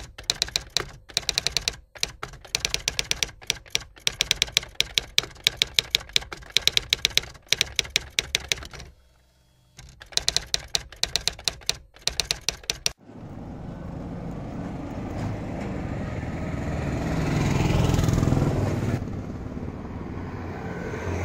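Rapid typewriter key clicks for about thirteen seconds, with a pause of about a second near the middle. Then an engine rumble swells to a peak about five seconds later and eases off.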